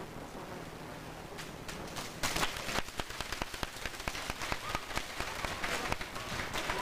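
Audience clapping, starting about two seconds in and keeping on as a dense patter of many hands.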